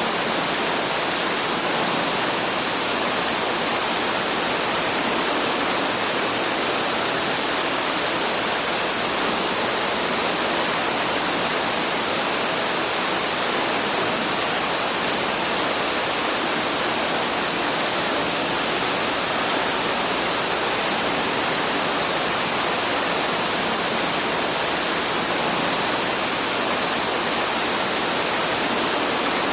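Waterfall: a steady, unbroken rush of falling water, a constant hiss strongest in the high range.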